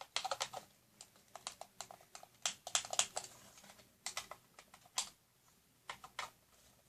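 Irregular light clicks and taps of packaging being handled as parts are lifted out of a toy drone's box.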